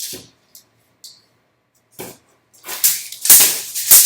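Steel tape measure being handled and pulled out along the wire: a few short clicks, then a louder spell of rattling, scraping clicks over the last second and a half.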